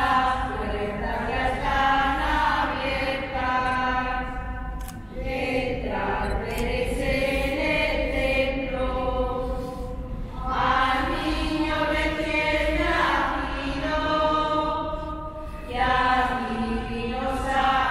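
A group of women and children singing a shepherds' Christmas carol together from song sheets, in long phrases with short pauses about every five seconds.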